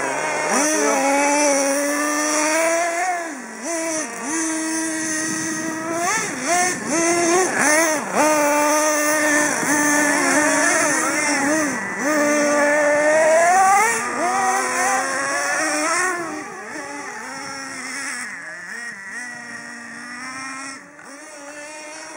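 Small two-stroke nitro engine of a radio-controlled car revving up and down again and again as it is driven around, with short rising whines and drops in pitch. It grows fainter from about 16 seconds in as the car moves away.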